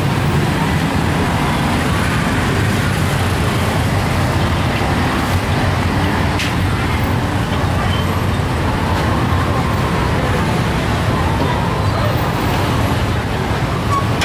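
Steady road-traffic noise of a busy street: a constant low rumble with no single event standing out.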